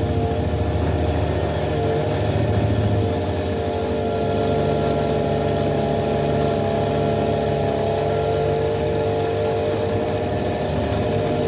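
Metal lathe running steadily at low speed with a steady hum while a 16 mm Morse-taper drill is fed into the spinning workpiece, drilling it out.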